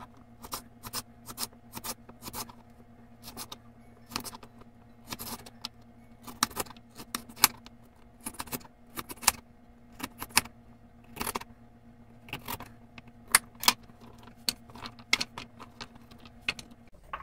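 Kitchen knife chopping peeled carrots into rounds on a wooden cutting board: a run of sharp, irregular chops, a few a second, over a faint steady hum.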